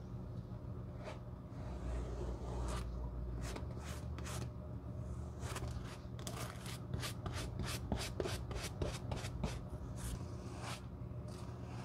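A small stiff-bristled brush scrubbing a dark protective dressing into a bare leather shoe sole in short, scratchy strokes, quickest in the middle at about four strokes a second. A low steady hum runs underneath.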